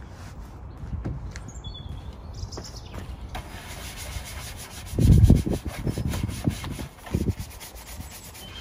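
A hand brush scrubbing a motorcycle's front forks and wheel, wet with cleaner, in quick scratchy back-and-forth strokes that start a few seconds in. Dull thumps are heard around the middle, the loudest about five seconds in.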